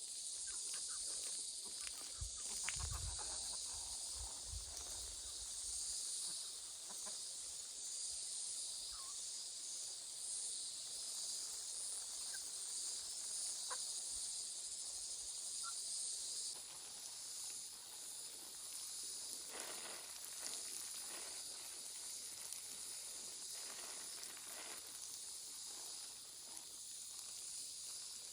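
Steady high-pitched insect chorus outdoors, with a few dull thuds about three to six seconds in and a few brief high chirps.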